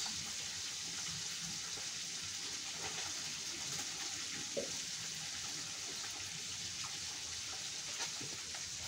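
Water swishing faintly as rice is rinsed by hand in an aluminium pot, over a steady hiss, with one brief knock about halfway through.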